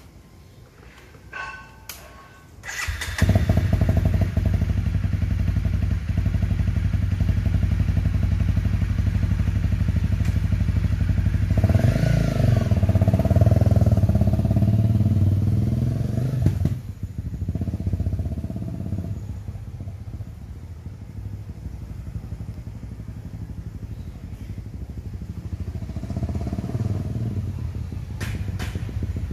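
Honda CRF250 Rally's single-cylinder engine starting after a few clicks, then idling steadily. It revs up as the bike pulls away, fades as it rides off, and grows louder again as it comes back.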